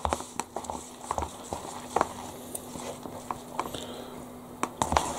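Scattered light taps and clicks as a small packet of seaweed and sesame seed flakes is tapped and shaken over a paper instant-noodle cup, with a faint steady hum underneath.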